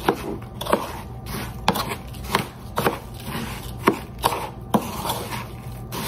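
Metal spoon stirring buttered cracker crumbs in a bowl: sharp knocks and clicks against the bowl about once or twice a second, irregular, over a soft scraping, gritty rustle of the crumbs.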